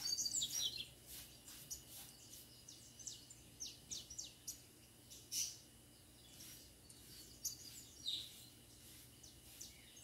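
Small birds chirping and calling in short, quick high notes, scattered irregularly, with a cluster of calls at the start and louder single calls about halfway and near the end. A faint steady high tone runs underneath.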